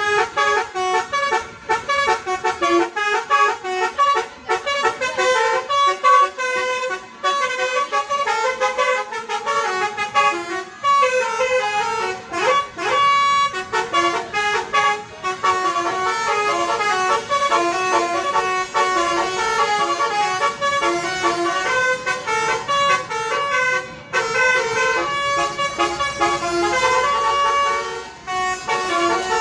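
Basuri telolet bus horn, a multi-tone horn playing quick runs of changing notes like a tune, with short breaks between the runs.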